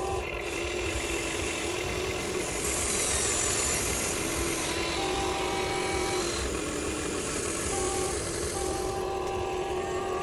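Huina 1593 RC excavator's electric gear motors whining, the tones shifting every couple of seconds as different functions start and stop.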